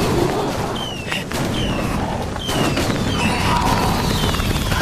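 Handheld fireworks going off in a film soundtrack: a run of short falling whistles about once a second over a crackling hiss, with a few sharp bangs in the first half.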